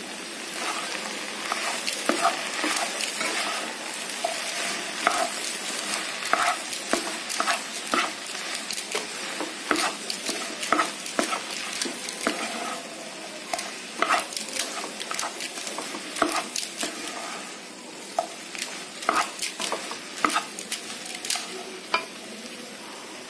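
Chopped okra and onions sizzling in a pan while a spatula stirs through them, with frequent short scrapes and clicks of the spatula against the pan over a steady frying hiss.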